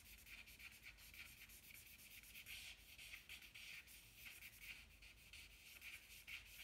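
Faint scratching of a stick of willow drawing charcoal on paper in many quick short strokes, shading a small area solid black.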